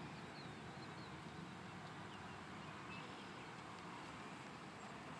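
Faint, steady outdoor background with a few small, faint bird chirps.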